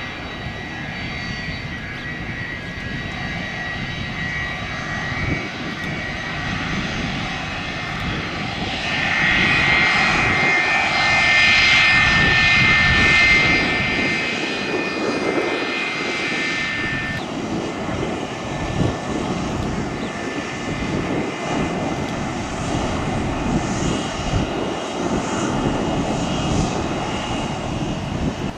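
Jet airliner engines passing, a steady whine with a rushing noise underneath that swells about a third of the way in, peaks, and fades after about 17 seconds.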